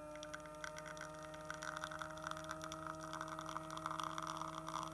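La Marzocco espresso machine's pump humming steadily at one pitch while a shot extracts, with a rushing hiss building in about a second and a half in.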